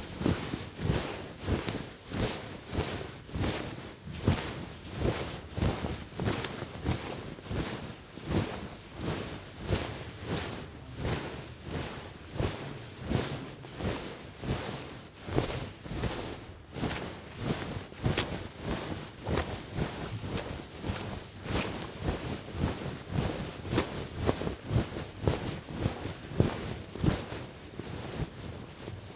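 Clothing rustling with each stride as someone walks, a swish of fabric in a steady rhythm of about two a second.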